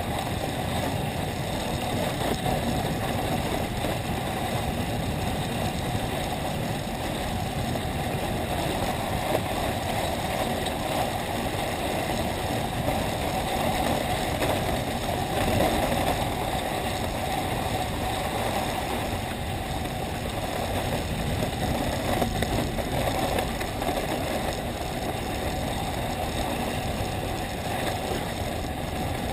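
Steady rushing and rumbling of skis sliding over packed snow while being towed up a T-bar lift, heard through a camera mounted on the rider's ski-bike.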